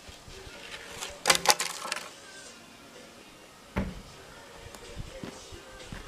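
A quick cluster of sharp clacks and knocks about a second in, then a single knock near four seconds, over faint background music.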